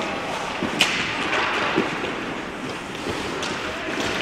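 Ice hockey play on a rink: skates scraping and hissing on the ice, a sharp crack of stick or puck a little under a second in, then a duller thud about a second later and a lighter knock near the end, ringing in the arena's echo.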